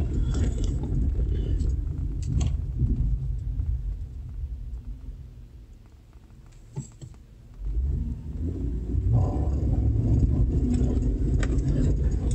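Low road and drivetrain rumble inside the cab of a Chevrolet Avalanche pickup, dying away as the truck slows to a stop, then a short click and the rumble rising again as it pulls away about two-thirds of the way through.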